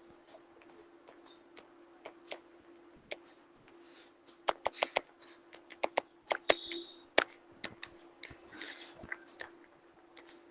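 Irregular light clicks and taps, a stylus tapping on a tablet's touchscreen while numbers are handwritten, busiest around the middle, over a faint steady hum.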